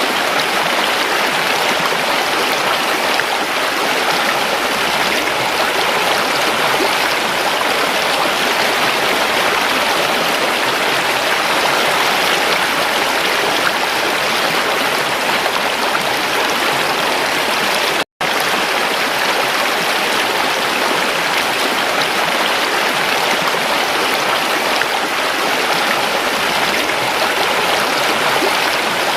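Rushing river water, a steady even noise with no change in intensity. A split-second gap of total silence cuts in about two thirds of the way through, then the same flow resumes.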